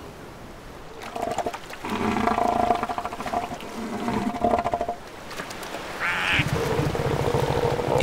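Southern elephant seals calling: deep, rapidly pulsed calls begin about a second in, pause near the middle, and a second pulsed call starts near the end.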